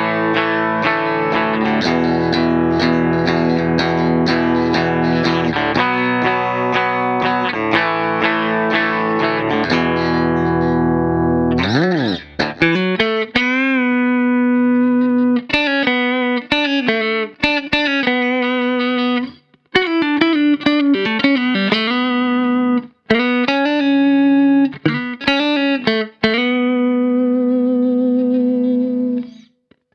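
Ibanez RC720 Premium electric guitar with humbuckers, played through a distorted amp. About the first twelve seconds are thick sustained chords; then a quick slide down and back up leads into a lead line of single sustained notes with string bends and short breaks.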